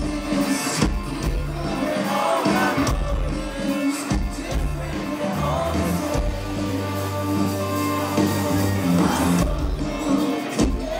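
Rock band playing live: a male lead singer over electric guitars, bass and drums.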